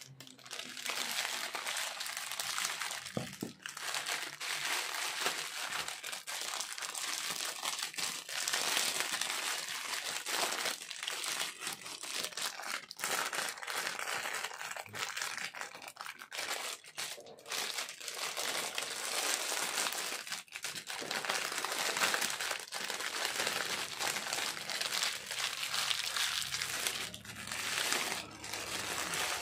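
Plastic packaging crinkling and rustling as it is handled and pulled open: a black plastic mailer bag, then a clear plastic inner bag. The crinkling is almost continuous, with brief pauses.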